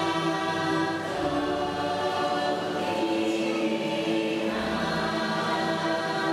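Dark-ride soundtrack of a choir singing held chords that shift every second or two.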